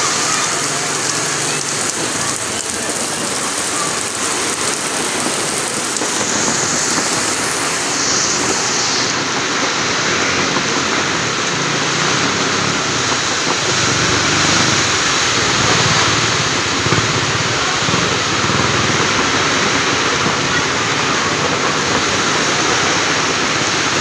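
Heavy monsoon rain pouring steadily, a dense, even hiss of rain on pavement and flooded ground.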